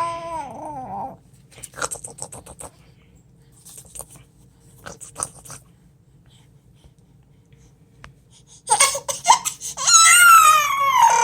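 Infant vocalizing: a pitched, wavering wail that breaks off about a second in, a few faint clicks and rustles, then from about nine seconds a loud, high, drawn-out squealing cry whose pitch slides down.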